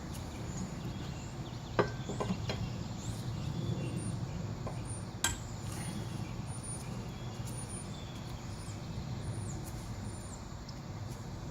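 A lug wrench clinking a few times on the wheel's lug nuts as they are broken loose, with the sharpest clinks about 2 and 5 seconds in, over steady low background noise.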